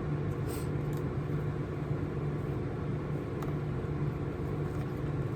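Steady low mechanical hum with an even hiss, like a room fan or appliance running, with a couple of faint light clicks or rustles.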